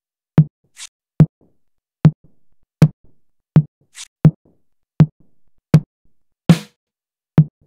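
AI-generated variations of a low electronic drum sample played back one after another, about one hit every 0.8 seconds. Each is a short thump with a sharp click on top, and some are followed by a brief high hiss.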